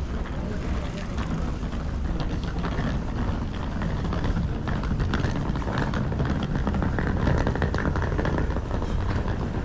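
Steady low rumble of wind buffeting a handheld camera's microphone, mixed with the hum of city street traffic.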